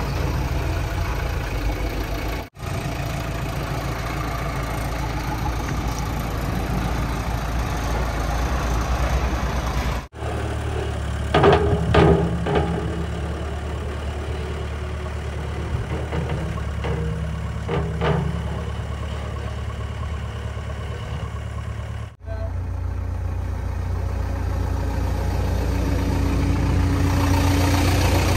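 JCB 3DX backhoe loader's diesel engine running steadily at a low idle. It breaks off abruptly three times and resumes. A few brief louder noises rise over it about 11 to 12 seconds in.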